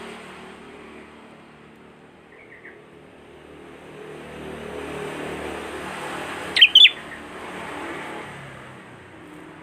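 A sooty-headed bulbul (kutilang) calling in prenjak-style chirps: a quick burst of two or three sharp, high notes about two-thirds of the way through, with one faint short note earlier, over steady background noise.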